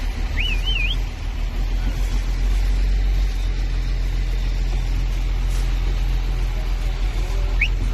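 Flatbed truck engine running steadily, a continuous low rumble. A short warbling whistle comes about half a second in, and a brief rising whistle near the end.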